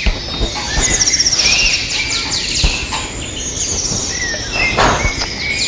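Recorded birdsong played as a forest sound effect: many quick chirps and trills from several birds, with a few soft knocks among them.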